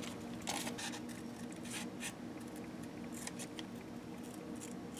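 Household scissors snipping through sheet paper, cutting out a fish-shaped template: faint, irregular snips over a steady low hum.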